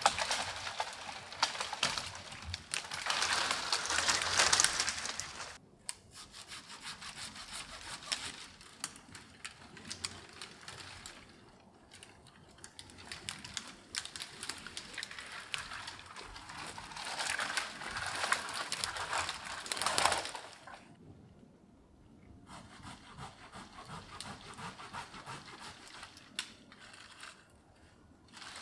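Small dead conifer trees being pushed over and pulled down through standing branches: dry twigs crackling and snapping, with branches rustling, in several long bursts. The loudest bursts come at the start and again about two-thirds of the way in.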